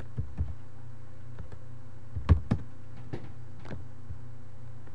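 Scattered computer keyboard and mouse clicks, about six sharp taps, with the loudest pair about two and a half seconds in. A steady low hum runs underneath.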